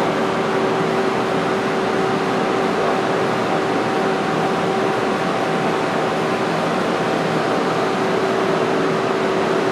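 Hardinge Quest CNC lathe powered up and idling: a steady fan-like drone with a constant whine on top. A fainter, higher whine drops out about eight seconds in.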